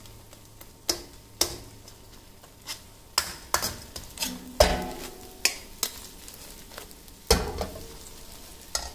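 A metal ladle scraping and clinking irregularly against a steel wok as eggs are stirred and broken up, over a faint sizzle of the eggs frying in oil and melted butter on low heat. The hardest knocks, about halfway and near the end, ring briefly.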